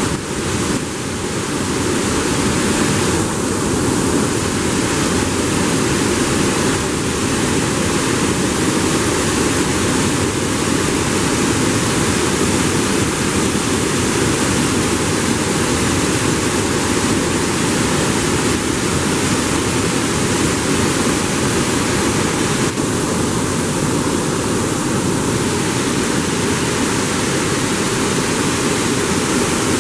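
Water pouring through a river sluice gate and churning in the pool below it: a loud, steady rushing.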